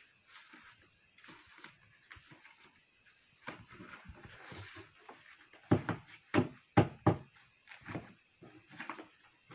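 Sheets of paper being handled and shuffled on a desk, with soft rustling throughout and a quick run of loud knocks about six to seven seconds in.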